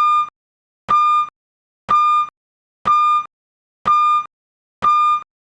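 Electronic beeper sounding a steady series of identical short beeps, about one a second, each a single fixed pitch that starts and stops abruptly.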